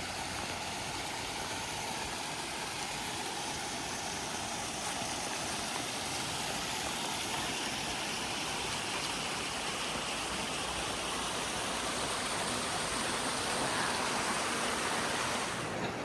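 Water of a mountain stream or spring running steadily, a constant rushing wash that grows slightly louder toward the end.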